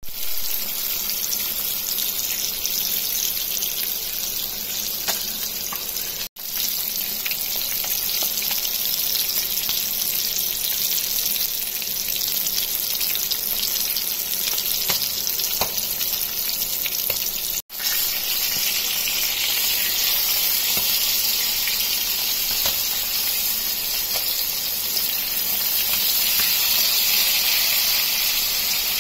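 Masala-coated fish fillets sizzling as they shallow-fry in oil in a nonstick pan: a steady hiss with small crackles, cutting out for an instant twice.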